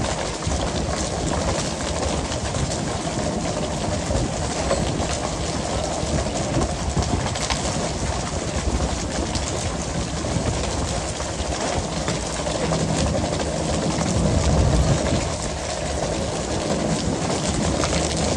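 Working deck of a pole-and-line tuna boat: a steady wash of engine and water noise under a constant, irregular clatter of skipjack tuna landing and flapping on the deck. A louder low rumble swells briefly about fifteen seconds in.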